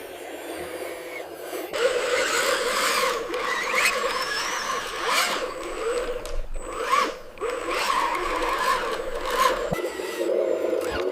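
Model RC excavator digging: its small motor whines steadily, and from about two seconds in the bucket scrapes and grates through dirt in irregular strokes.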